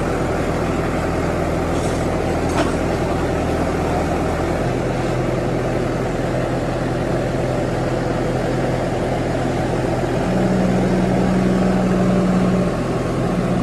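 JCB 3DX backhoe loader's Kirloskar diesel engine running steadily. Its note shifts about a third of the way in, and a louder steady tone rises over it for a couple of seconds near the end.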